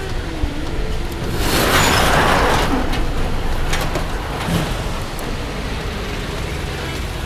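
1937 Ford's flathead V8 idling with a steady low rumble, with a loud rushing noise that swells and fades between about one and three seconds in.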